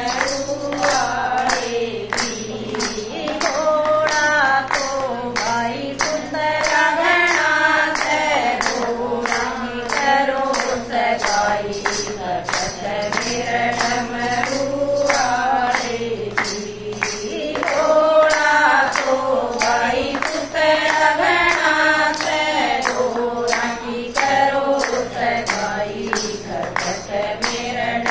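Group of women singing a Haryanvi Shiva bhajan together, keeping time with steady hand claps, about two a second.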